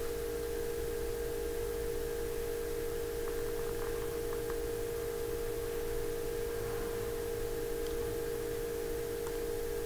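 A steady electrical hum with a constant mid-pitched tone and a low hum under it, unchanging throughout.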